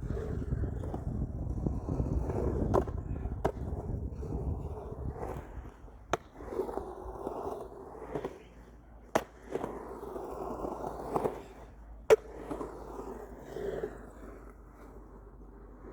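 Skateboard in use: the wheels rumble as it rolls for the first few seconds, then come scraping passes broken by sharp clacks of the board about every three seconds, the loudest late on.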